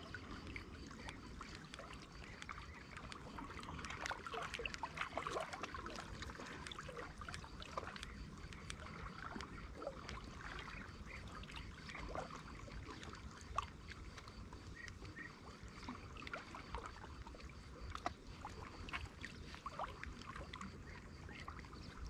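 Faint lapping and small splashes of water, with scattered light clicks, during a walk-the-dog retrieve of a topwater pencil lure.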